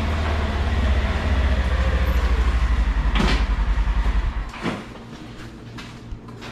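Polaris Ranger Highlifter UTV engine idling with an even, fast pulse, then switched off about four and a half seconds in. A door latch clicks a little after three seconds, and a door shuts with a thump at the very end.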